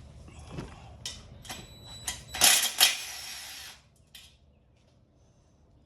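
Metal motorcycle parts and tools being handled, with scattered clicks and then a loud metallic rattling clatter with a faint ring, about two and a half seconds in and lasting about a second.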